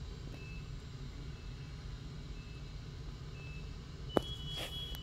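Firefighters' air-pack (SCBA) alarms: short high beeps about once a second, then a steady high double tone from about four seconds in, signalling air packs that are dead. A sharp click, the loudest moment, comes just before the steady tone.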